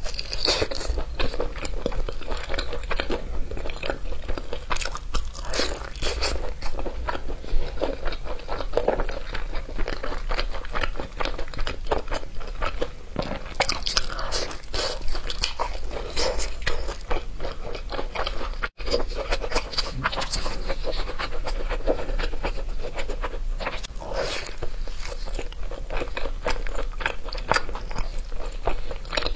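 Crunching bites and chewing of crispy sauce-coated fried chicken, a dense run of crisp crackles.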